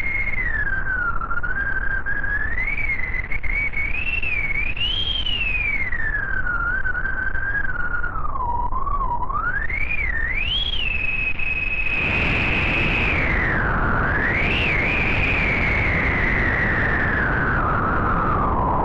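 Synthesised storm wind from a u-he TYRELL N6 software synthesizer: filtered noise with a howling whistle that rises and falls in pitch. About twelve seconds in, a deeper rushing noise swells beneath the whistle.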